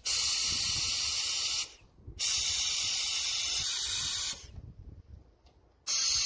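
Air-powered vacuum brake bleeder hissing as its trigger is pressed and released, drawing brake fluid out through the caliper's bleed nipple. It goes in three bursts that start and stop sharply: two of about two seconds each, then a short one near the end.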